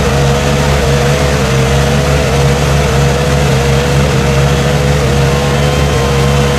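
Side-by-side UTV engine held at high revs, its pitch wavering slightly, as the machine churns through deep mud with its tyres spinning.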